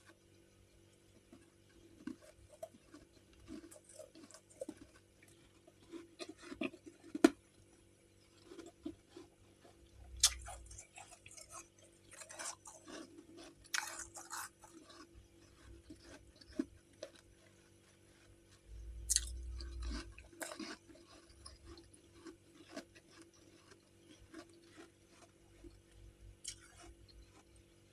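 Close-up chewing and crunching of chunks of freezer frost: irregular crisp crunches and crackles, with louder bursts of crunching about a third of the way in and again about two-thirds through, over a steady low hum.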